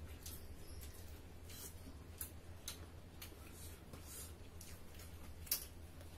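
Mouth sounds of people eating by hand: irregular wet smacks and clicks of chewing, with a sharper click about five and a half seconds in, over a faint steady low hum.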